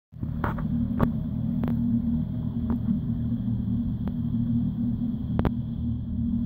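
Jetboat's Nissan VQ35HR 3.5-litre V6 running at low speed with a steady, low rumble as the boat idles away from the ramp. Several sharp clicks sound over it, the loudest about a second in.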